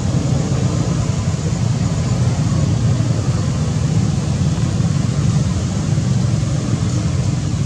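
A steady low rumble of background noise throughout, with no distinct calls or knocks standing out.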